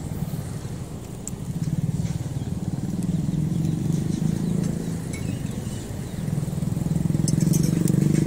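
Small motorcycle engines passing on a road close by, a steady engine drone that swells and fades and grows louder near the end as more bikes go by.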